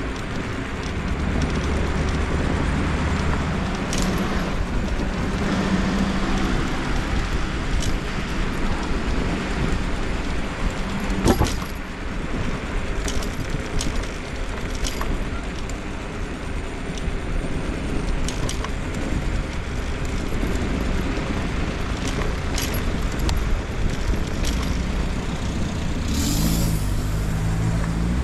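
Continuous road and traffic noise heard while riding a scooter along city streets, with a steady rumble and many short sharp clicks and knocks. The loudest knock comes a little before halfway, and a rising sound, like a vehicle passing, comes near the end.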